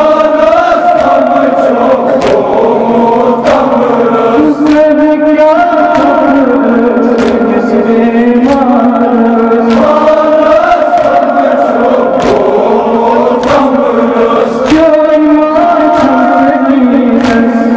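Men chanting a Muharram mourning lament (nauha) together, with rhythmic chest-beating (matam) strikes about once a second keeping time.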